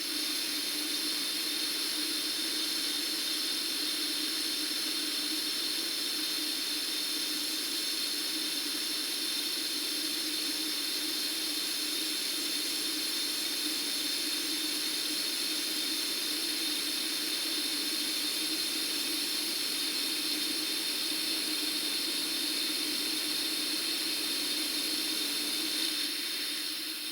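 Compressed air from a compressor rushing steadily through a pipe: an even, high hiss with a steady low resonant tone underneath.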